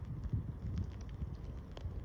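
Wind rumbling on the microphone, with a few faint light clicks and water sounds as mute swans dabble for seed at the surface.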